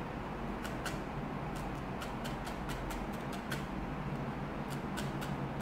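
A felting needle stabbing again and again through a tuft of wool into a foam sponge, a short click at each stab, about three a second.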